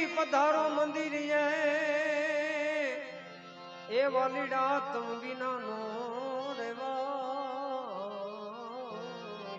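Indian devotional folk music: a melodic line of long, wavering, ornamented notes over a steady drone. The line pauses briefly about three seconds in, then starts again.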